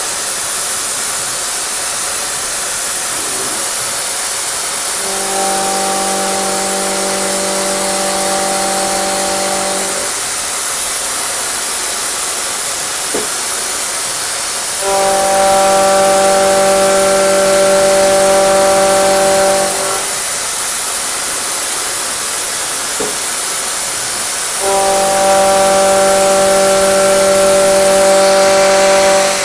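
CNC milling machine cutting steel plate with a Sandvik Coromant R300 milling cutter: a steady loud hiss throughout, and three times, about ten seconds apart, a pitched hum of several tones that lasts about five seconds as the cutter makes a pass through the plate.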